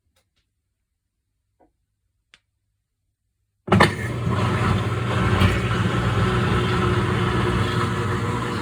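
A few faint clicks, then about halfway through a washing machine starts suddenly and runs loudly and steadily: a low motor hum with a rushing churn over it.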